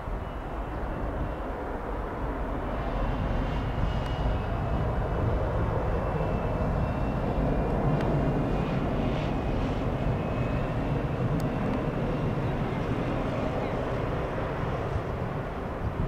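Airbus A319 jet engines at takeoff thrust as the airliner climbs away: a steady deep rumble with a faint high whine, swelling over the first few seconds and then holding.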